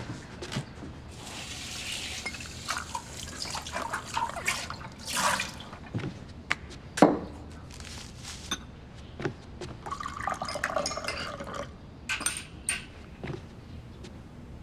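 Instant coffee being made: water pouring into a cup, with small clinks of cup, glass and spoon. One sharp knock about halfway through.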